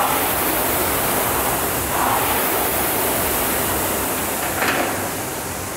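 Concept2 indoor rower's air-resistance flywheel spinning with a steady whoosh that swells with each drive stroke, about every two and a half seconds.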